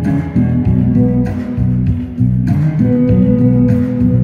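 Guitar-led dance music with a steady beat.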